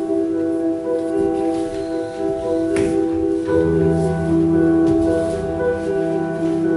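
Ambient music of sustained, held tones, with a deep bass note coming in about three and a half seconds in. A single short knock just before three seconds in.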